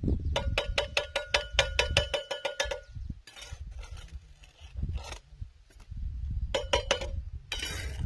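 Mason's trowel tapping a hollow ceramic brick to bed it in mortar: a quick run of ringing taps, several a second, then the trowel scraping mortar, and another short burst of taps near the end, over a low rumble.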